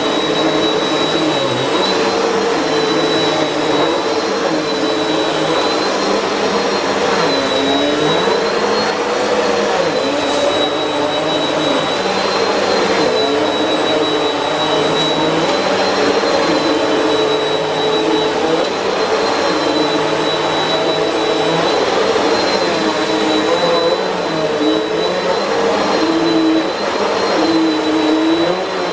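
Simple Value Bagless vacuum cleaner running on shag carpet, its brushroll spinning on a freshly changed belt. The motor gives a steady loud whine whose pitch wavers slightly up and down.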